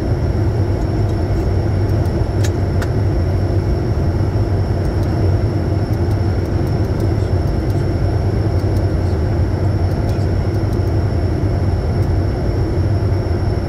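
Steady cockpit noise of a Bombardier Challenger 350 business jet: a low rumble of airflow and its turbofan engines, with a thin, steady high-pitched whine over it.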